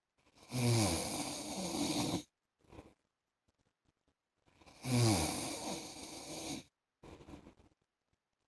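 A man snoring: two long snores about four seconds apart, each sliding down in pitch and followed by a short, faint breath.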